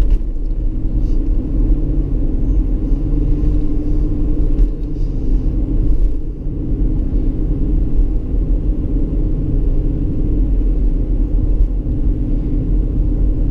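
Ford Expedition's engine running while driving, breathing through a K&N aftermarket air filter: a steady deep rumble that eases off briefly about halfway through.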